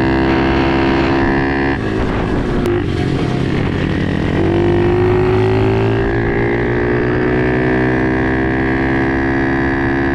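Pit bike engine running at speed. A little before halfway its pitch begins a slow climb as the bike accelerates.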